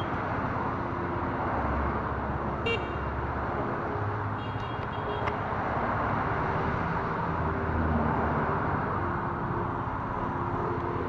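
Motorcycle on the move: steady wind rush and road noise over the engine's low running note, with passing traffic. A short horn toot sounds about a quarter of the way in, and a brief high beeping near the middle.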